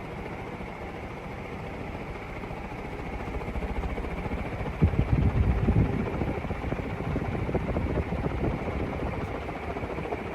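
56-inch Emerson TAT industrial ceiling fan running at full speed, a steady rush of moving air. Its draft buffets the microphone in low rumbling gusts, loudest about halfway through.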